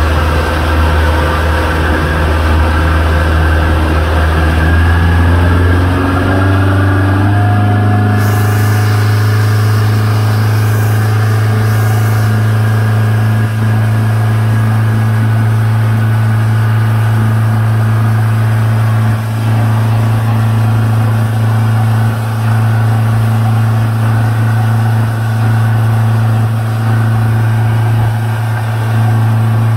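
Tow boat's engine running at speed, rising in pitch as it speeds up in the first several seconds, then holding a steady note, under a constant rush of water and wind.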